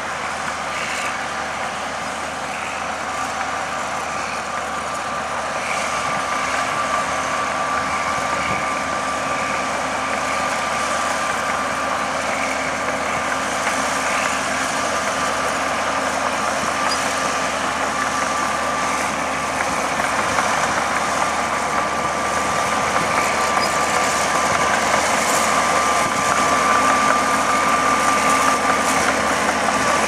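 Track Marshall 155 crawler tractor's diesel engine working steadily under load while pulling a six-furrow plough, with a steady high whine running through it and the sound slowly growing louder.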